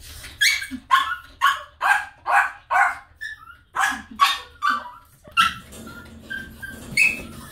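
A dog barking: a quick run of about six barks, a short pause, three more, and a single bark near the end.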